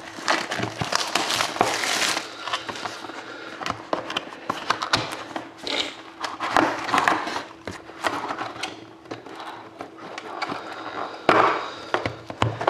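Plastic shrink-wrap being peeled and crinkled off a cardboard trading-card box: irregular crackling and rustling with scattered clicks as the wrap tears and the box is handled, with a louder burst of crinkling about a second before the end.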